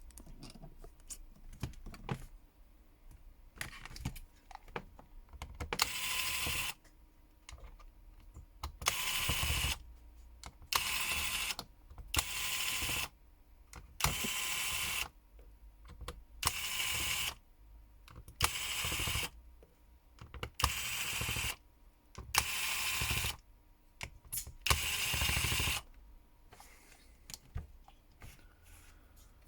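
Small electric screwdriver whirring in about ten short bursts, each about a second long and roughly two seconds apart, as it backs out the screws inside a Samsung Galaxy S10 smartphone. Light clicks and taps of parts being handled come between the bursts.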